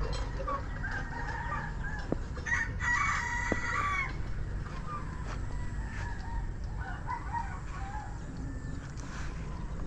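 Roosters crowing, the loudest crow about three seconds in, with more calls about a second in and around seven seconds, over a low steady rumble.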